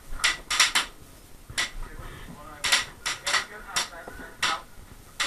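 Airsoft fire in a close skirmish: about a dozen sharp cracks and knocks at irregular spacing, some in quick pairs, from shots fired and BBs striking the hut.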